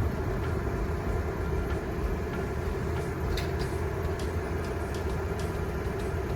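Truck running down the road: a steady low engine and road drone with a constant hum in it, and scattered faint clicks over the top.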